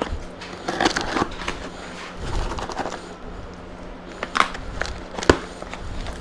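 Hands rummaging through a box of parts and packaging: wrapping and padding crinkling and rustling, with scattered knocks and a sharp click about five seconds in.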